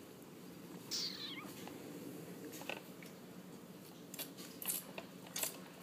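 Cardigan Welsh Corgi puppy giving one short, high whine that falls in pitch about a second in. Several short, sharp noises follow in the second half.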